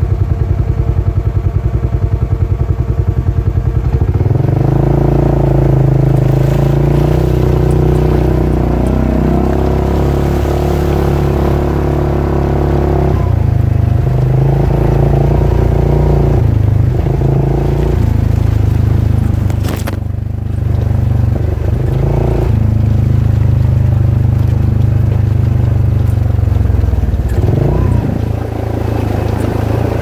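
Polaris RZR side-by-side engine heard from on board, idling with an even rapid pulse, then from about four seconds in running under throttle along a rough dirt trail. Its pitch and loudness rise and dip repeatedly as the throttle opens and closes.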